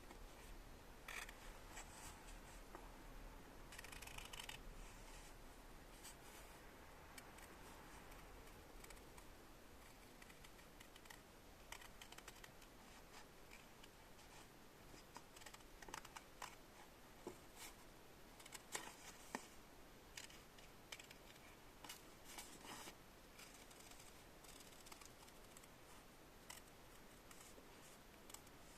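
Near silence with faint scattered clicks and light scratching, and a handful of sharper ticks near the middle.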